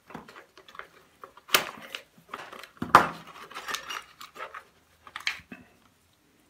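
Metal hand tools and small machine parts clinking and clattering as they are handled, with two sharper clanks about one and a half and three seconds in.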